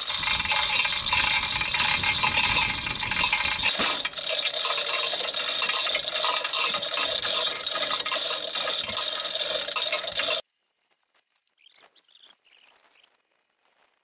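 Manual chain hoist (chain block) being hauled to lift a heavy boulder: a steady, rapid clinking and rattling of chain links running through the hoist. The rattling stops abruptly about ten seconds in, leaving only a few faint clinks.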